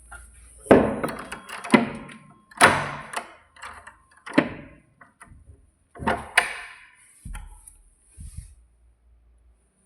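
A series of irregular knocks and thuds, about nine in ten seconds, each sharp at the onset and fading quickly.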